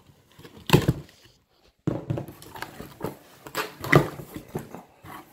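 A cardboard shipping box being handled and opened: short scrapes and rustles as the knife-cut flaps are pulled apart and folded back, with a brief pause about a second in and a louder scrape near the end.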